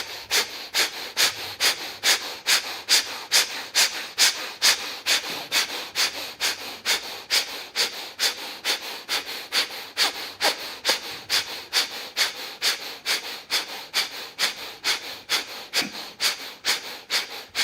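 Bhastrika (bellows breath) pranayama through one nostril: rapid, forceful sniffing breaths in and out through the nose at about three a second, in a steady unbroken rhythm.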